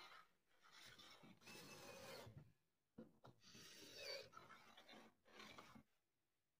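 Carriage of a steel drawer-slide rail pushed by hand back and forth along the rail, a faint rasping rub in strokes of about a second with short pauses, stopping near the end.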